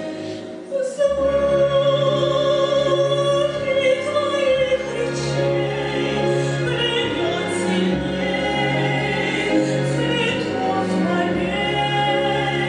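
Woman singing an operetta number in operatic style with vibrato over an orchestral accompaniment. After a brief lull, the orchestra and voice come back in fully about a second in.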